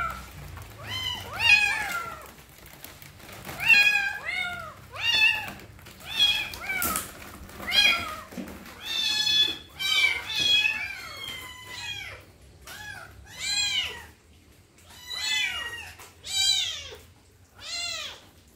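Kittens meowing again and again, high thin calls that rise and fall in pitch. The calls crowd and overlap at first, then come about once a second.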